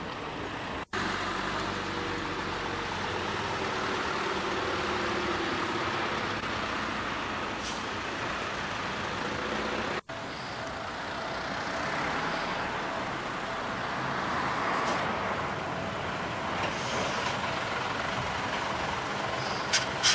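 Steady road traffic noise that cuts out for an instant about a second in and again about halfway through. Near the end a few sharp high clicks are heard as an electric train comes round the curve.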